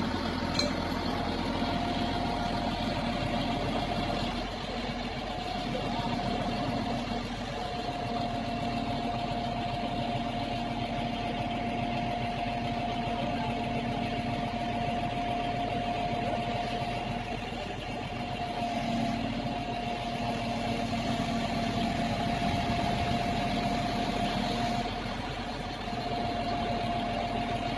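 Crane truck's diesel engine running steadily at idle, with a steady whine held over the engine hum.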